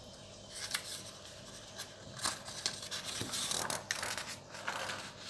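Sheets of paper rustling and sliding as a page of handwritten notes is moved and replaced by the next, with a few sharp clicks and scrapes scattered through it.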